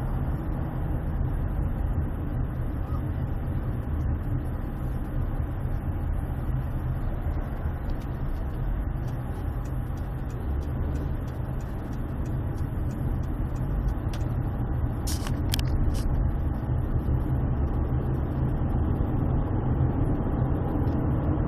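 Steady road and engine rumble of a car driving, heard from inside the cabin. A few short clicks come about two-thirds of the way through.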